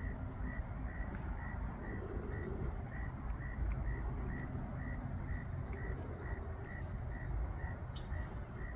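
Steady low outdoor rumble with a short, high chirp repeating evenly about two and a half times a second.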